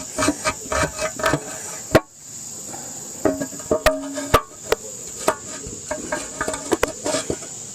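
Metal tools and engine parts clanking on a Farmall tractor engine being taken apart: a string of irregular sharp knocks, some with a short metallic ring. A steady high-pitched insect buzz runs underneath.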